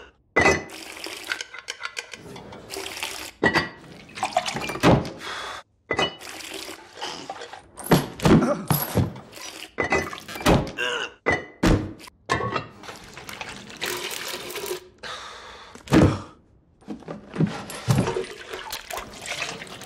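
Quick succession of short household sound effects: liquid pouring and sloshing into bowls and pots, broken up by hard thunks and knocks, with abrupt cuts between them.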